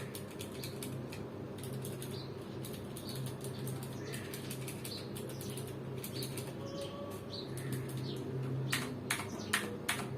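Clicky mechanical switches of a Rapoo V500 SE keyboard being typed on: a rapid, irregular run of sharp key clicks that grows denser near the end. The sound is what he calls super clicky.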